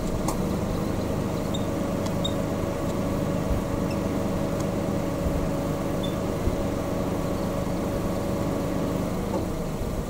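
Steady hum of an idling car engine, with a few faint short high chirps.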